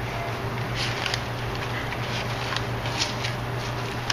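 Hands kneading raw ground turkey meatloaf mixture in a bowl: a few faint, short squishes and rustles over a steady low hum.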